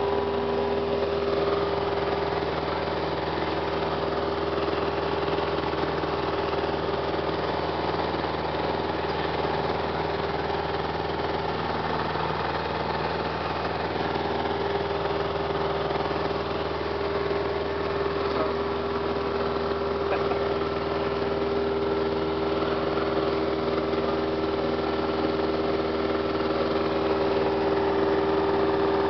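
Piper Cherokee 140's four-cylinder Lycoming engine and propeller droning steadily in flight, heard inside the cockpit. Its tone shifts slightly a couple of times.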